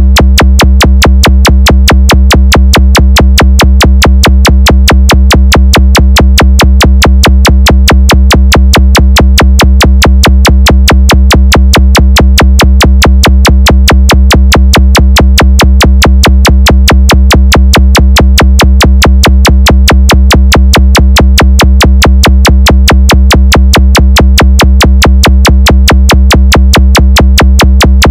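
DJ sound-check bass track: a fast, even drum-machine beat over heavy, steady deep bass, played at full level for bass vibration.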